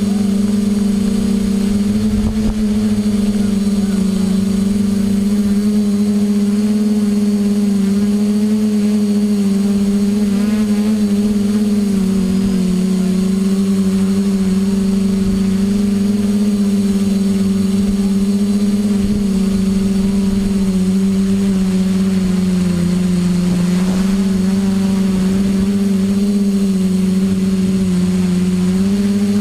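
A hovering drone's electric motors and propellers hum steadily, picked up by the drone's own camera. The pitch wavers slightly and dips now and then as the drone holds position.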